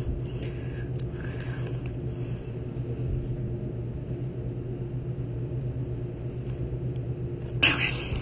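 Steady low hum of a small room, with a few faint clicks about a second in and a brief rustling noise near the end.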